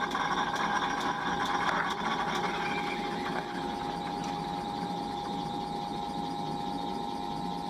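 Old South Bend 14½-inch lathe running, taking a spring pass on a large metal flywheel spacer. The cutting noise stops about three seconds in and leaves a steady whine from the running lathe.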